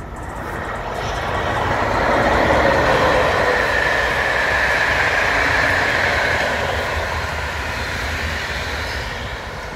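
Ganz MÁVAG class 431 electric locomotive and its passenger coaches passing close by on the rails. The rolling noise swells over the first two seconds, holds, and eases off over the last few seconds as the coaches move away.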